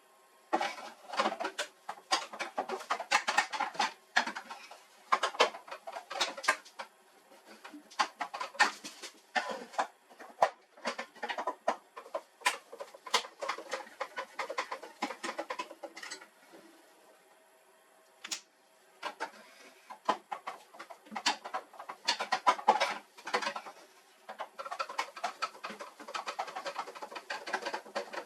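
Irregular bursts of sharp clicks and rattles, like plastic and metal printer parts being handled and worked loose, with a quieter pause a little past halfway.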